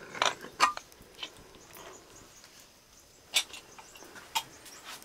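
A few sharp clinks and knocks of kitchen utensils: three close together in the first second or so, then two more spaced about a second apart later on.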